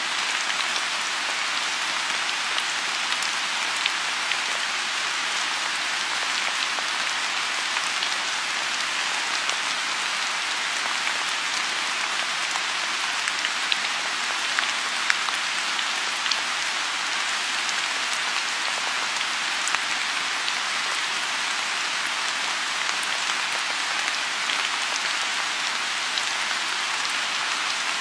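Steady rain falling on a pond: a dense, even patter with scattered louder single drops.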